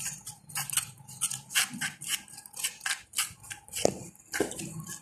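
Small metal spoon scraping and clicking against a miniature clay pot while stirring jaggery dissolving in water, about three light strokes a second.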